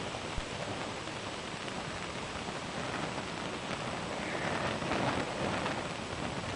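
Fire burning on leather shoes: a steady hiss of flames with crackling that grows busier and a little louder about halfway through.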